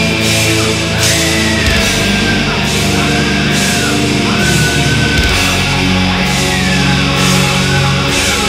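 Extreme metal in a symphonic black metal style: distorted guitars and keyboards holding chords, with a cymbal crash about once a second and a high melodic line that bends in pitch.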